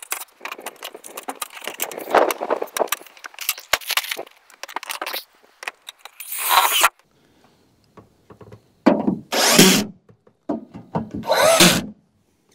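Sheet-metal roofing scraping and rattling as a piece is slid into place, then three short runs of a power drill driving screws into the tin roof.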